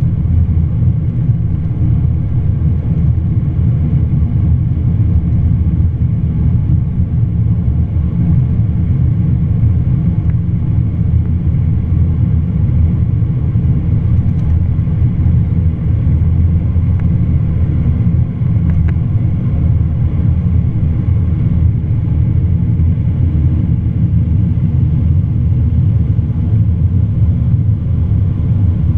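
Cabin noise of a Boeing 787-9 at takeoff power: a steady low rumble of the engines and rushing air as the airliner lifts off and climbs.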